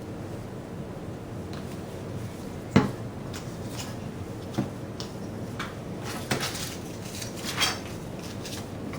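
Hands handling construction-paper pieces and craft supplies on a tabletop: one sharp knock about three seconds in, then several lighter taps and short scrapes.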